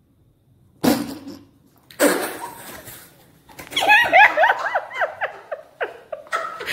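Two sudden loud noisy bursts about a second apart, then high-pitched laughter in quick repeated bursts from about halfway through.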